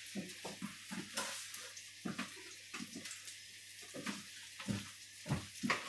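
Curry paste sizzling in a wok, a soft steady hiss, with a few scattered clicks and knocks.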